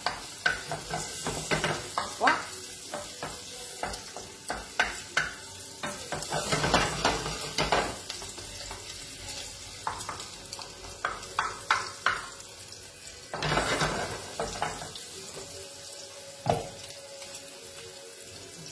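Diced pancetta sizzling as it browns in butter in a small frying pan, a steady hiss with louder swells, broken by many sharp clicks of a utensil against the pan as it is stirred.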